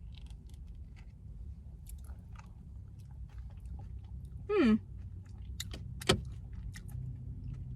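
Quiet eating sounds of a person tasting a Dairy Queen Blizzard: soft chewing and small mouth clicks. About halfway through comes a short voiced hum, and a little after it a sharper click.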